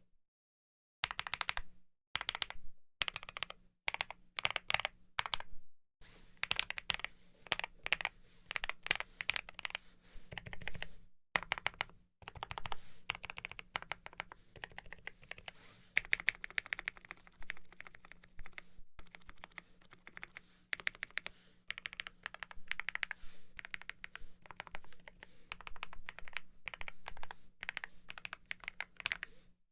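Fast, continuous typing on a Wuque Studio Mammoth 75 mechanical keyboard with lubed C3 Tangerine V2 67g linear switches and GMK keycaps, the keystrokes coming in quick runs with a few brief pauses.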